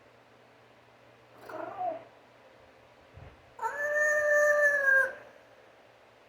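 African grey parrot vocalizing: a short call about a second and a half in, then a long held call of about a second and a half that dips slightly in pitch at the end.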